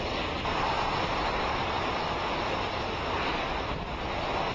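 Hurricane wind and driving rain, a steady rush with the wind buffeting the microphone.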